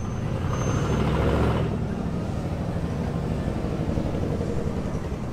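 Lifted pickup truck driving past at close range, its engine and exhaust rumbling loudest about a second in, then easing into steady street traffic noise.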